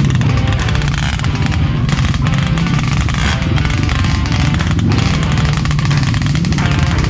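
Trail motorcycle engine running steadily.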